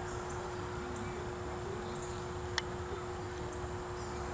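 Faint steady hum over a background hiss, with a single sharp click about two and a half seconds in.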